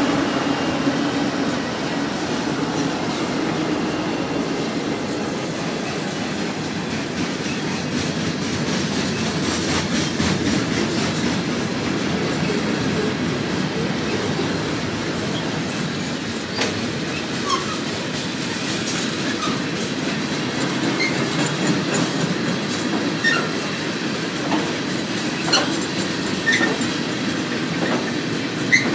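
Freight train cars rolling past at speed: a steady rumble of steel wheels on rail with continual clicking over the rail joints. The trailing locomotive's engine drone fades in the first second, and brief high wheel squeals come in the second half.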